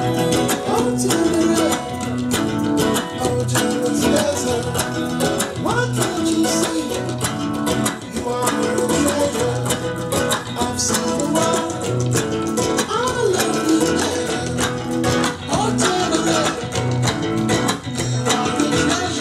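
Music: a guitar-led song with a singing voice and a steady low beat.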